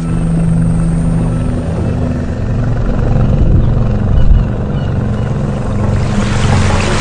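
Boat engine running steadily under way with a low rumble; from about six seconds in, a rushing of water and wind rises over it.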